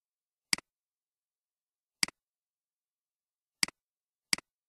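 Four computer mouse clicks, each a quick double tick of button press and release, the last two less than a second apart, with dead silence between them.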